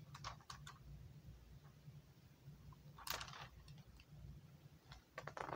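Near quiet with a steady low room hum, and a few soft rustles and clicks of a picture book being handled and its pages moved, the loudest a short rustle about three seconds in.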